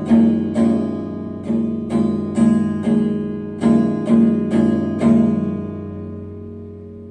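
Wind-up chiming clock playing its chime melody on struck chime rods: bell-like notes in four-note phrases about half a second apart, the last note ringing on and slowly dying away.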